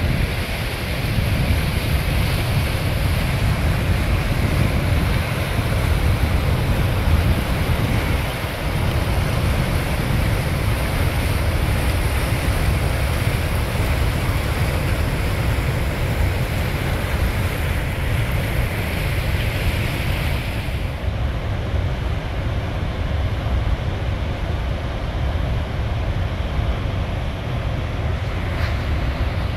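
Rushing water of the Niagara River rapids and the Horseshoe Falls, a steady loud wash, with wind buffeting the microphone as a low rumble. About two-thirds of the way through, the hiss suddenly turns duller.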